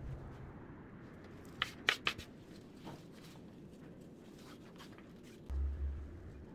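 Handling noise from fresh conifer greenery being worked into a wreath by hand: a quick cluster of sharp clicks and crackles about two seconds in, and a low bump near the end.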